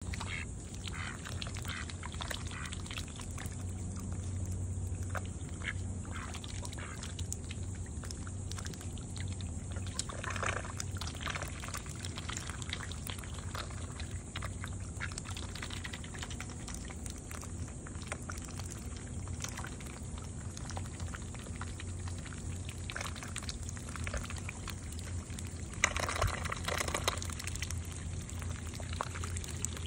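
Ducks dabbling and sifting through shallow muddy water with their bills: irregular wet splashing, slurping and dripping, with a louder flurry of splashing a little before the end. A steady low hum runs underneath.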